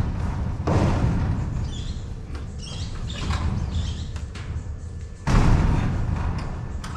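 Knocks and bangs of hand work on a metal roof gutter and downpipe, over a steady low rumble, with a louder clatter about five seconds in.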